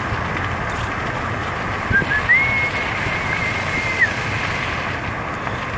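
Steady rushing road and wind noise of a moving car, heard from inside the cabin. About two seconds in, a high, thin whistle-like tone starts and holds for about two seconds, wavering slightly before it stops.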